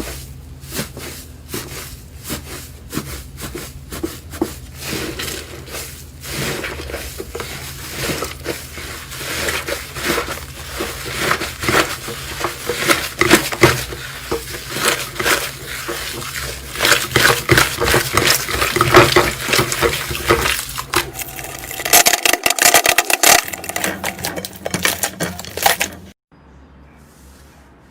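Slime being squeezed and pressed, a dense run of sticky clicks and crackling pops that grows louder toward the middle. It cuts off suddenly near the end.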